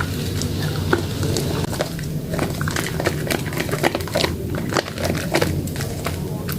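Soaked, softened soap worked and crushed by hand, giving an irregular stream of wet crackles and clicks.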